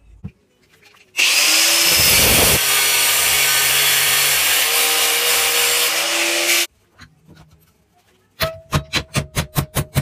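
Angle grinder cutting a flat steel strip clamped in a bench vise: it starts suddenly about a second in, runs loud for about five and a half seconds and cuts off abruptly. After a short pause come rapid ringing metal strikes on the steel strip in the vise, about six a second.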